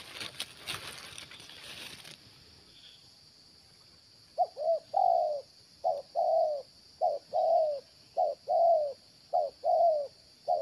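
Spotted dove (tekukur) cooing: after a couple of seconds of faint rustling, from about four seconds in it gives a short note followed by a longer coo, repeated about once a second, six times.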